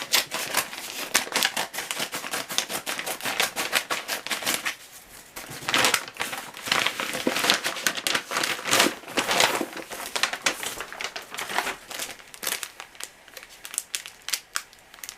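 Parcel packaging crinkling and rustling in irregular bursts as it is opened by hand, with a short lull about five seconds in.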